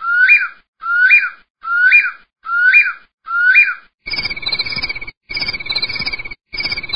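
Bird calls from a sound-effect recording: a short whistled call that slides up in pitch, repeated five times at a steady pace, then about four seconds in a different bird's call takes over, a trilled call repeated about once a second over a hissy background.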